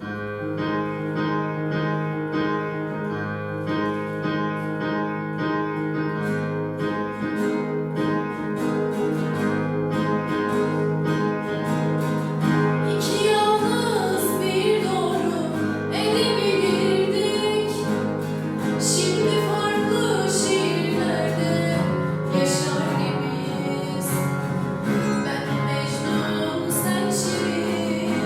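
Song performed to a steady instrumental accompaniment. A sung melody comes in about halfway through.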